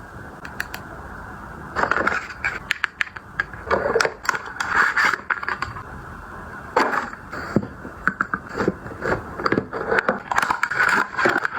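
Cosmetics packaging handled close to the microphone: scraping and crackling with many light clicks and taps, starting about two seconds in.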